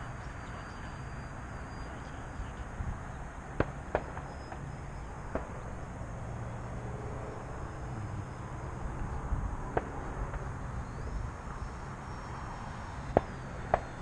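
Wind buffeting the microphone with a steady low rumble, a faint high whine from the P-39 Airacobra's electric motor and propeller rising and falling as it flies past near the end, and a few sharp clicks.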